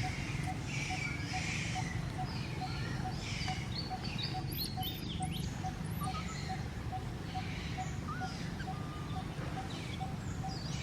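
Small birds chirping in short, quick rising and falling calls, over a steady low rumble and a faint, even ticking at about two or three ticks a second.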